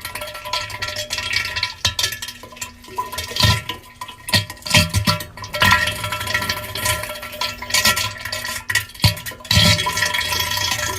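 Cartoon diarrhea sound effect: irregular wet splattering and spurting bursts, one after another.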